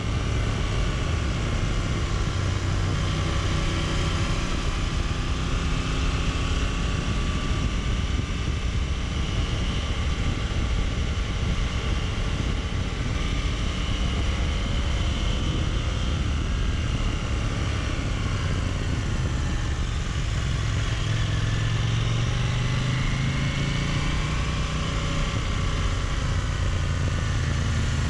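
Motorcycle engine running at road speed, its pitch rising and falling with the throttle, under steady wind noise on the camera microphone.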